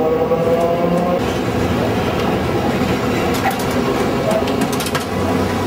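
Old-style electric tram running on its rails: a steady rumble, a rising motor whine in the first second, and scattered clicks later on.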